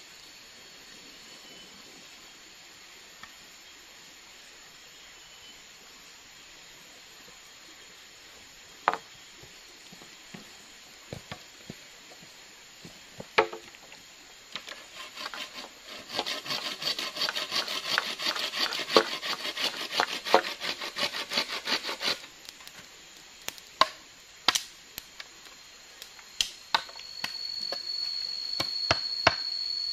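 Machete working bamboo: a few separate sharp knocks, then about seven seconds of fast, steady strokes, then more scattered knocks.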